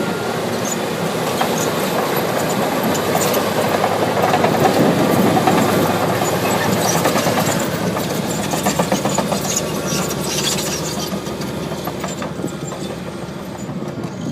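Komatsu D155AX-5 crawler bulldozer on the move: its diesel engine runs under load while the steel tracks clatter and rattle continuously. The sound swells to its loudest in the middle.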